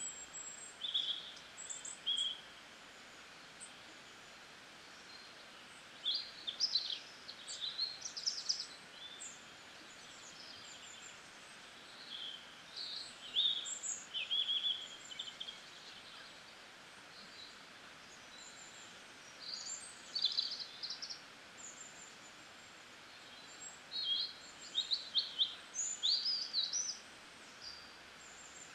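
Birds chirping in scattered clusters of short, high calls every few seconds over a steady background hiss.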